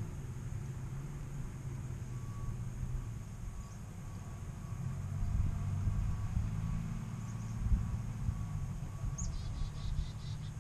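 Chickadees giving a few soft high chirps, then near the end one sharp falling note followed by a quick run of about half a dozen buzzy notes. Under them runs a steady low rumble with a faint repeated beeping, and there is one brief thump a little past the middle.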